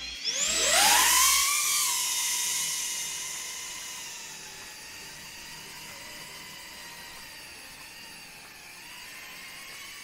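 Cinewhoop FPV drone's four brushless motors and ducted propellers spooling up for takeoff with a sharply rising whine about half a second in. The whine is loudest just after liftoff, then holds a steady high pitch and grows fainter over the next few seconds as the drone flies off.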